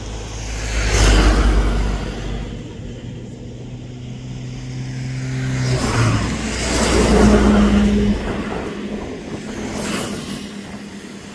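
Road vehicles passing close by, two in turn, each swelling and fading, over a steady engine hum.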